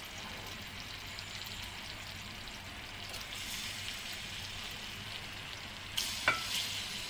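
Marinated chicken cubes sizzling and crackling steadily in hot oil in a steel pan. A couple of sharp clicks come about six seconds in.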